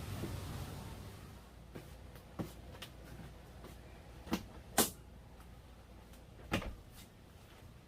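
A series of sharp clicks and knocks, about seven of them spaced irregularly and the loudest near the middle, after a faint background noise that fades in the first second.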